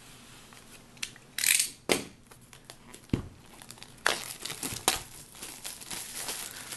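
Utility knife slitting the plastic shrink-wrap on a cardboard box: scraping and several sharp clicks. In the last couple of seconds the thin plastic film crinkles as it is pulled off.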